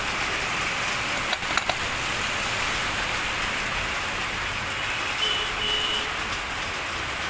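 Steady background hiss, with a few light metal clicks about a second and a half in as the crankshaft is worked into the motorcycle engine's aluminium crankcase half. A brief faint high beep sounds past the middle.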